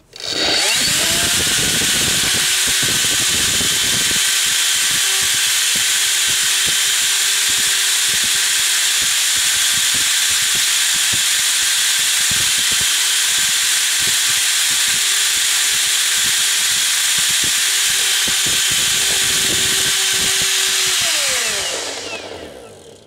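Milwaukee M12 Fuel 0960-20 cordless vacuum's brushless motor and fan running with the housing open. It spins up quickly and runs at a steady whine over a rush of air, then is switched off about 21 seconds in and winds down.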